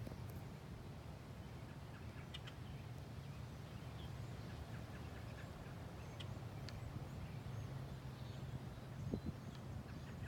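Birds chirping faintly now and then over a steady low rumble, with one short knock about nine seconds in.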